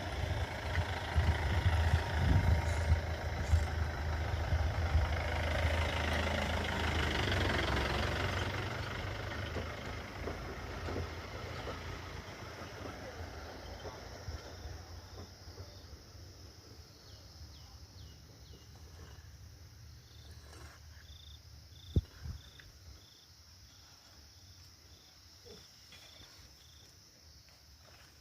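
A motor vehicle's engine running with a low hum that fades away over the first ten or so seconds. Afterwards faint insect chirps repeat evenly, with a single sharp click late on.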